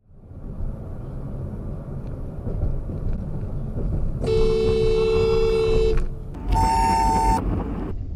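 Car horn honked twice, first a long blast of about a second and a half, then a shorter, higher-pitched blast, over the rumble of a car driving on the road. The honking is a warning at a driver pulling out onto the road without looking.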